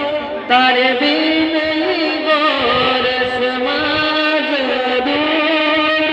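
A man singing long, held notes that waver and bend in pitch, with a brief break shortly after the start.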